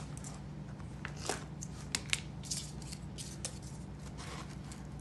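Scissors snipping a slit into a stuffed paper-plate body, a series of short sharp cuts and clicks, followed by paper and cardboard rustling as a cardboard beak is pushed into the slit near the end.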